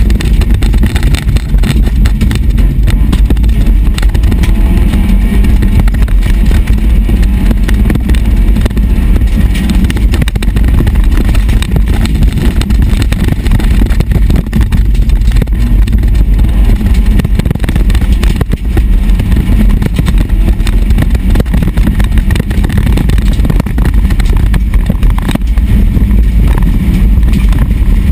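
SEAT Ibiza rally car's engine running hard, its pitch rising and falling as the car is driven flat out on dirt, heard from inside the cabin as a loud, heavy rumble with constant knocks and rattles.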